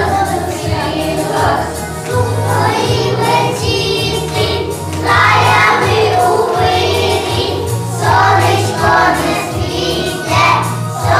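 A group of young children singing together over a recorded backing track with a steady bass line.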